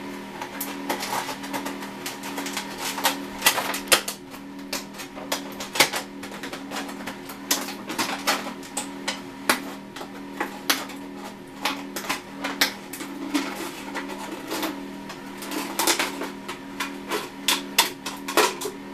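Scissors cutting through a thin plastic 2-liter soda bottle: irregular sharp snips and crackles of the plastic as the blades close, several a second, over a steady low hum.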